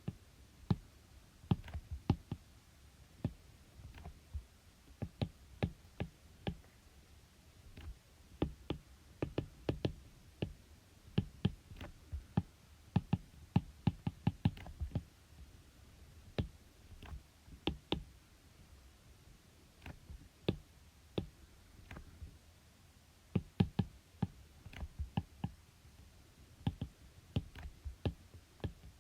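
Irregular sharp clicks and taps, often several a second in clusters, with short pauses in between, from writing out the working. There is a longer lull about 19 to 23 seconds in.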